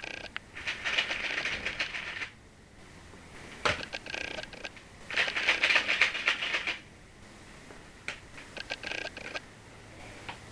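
Rubik's Cube being turned fast by hand: bursts of rapid plastic clicking, two runs of about two seconds and a few shorter ones, with brief pauses between.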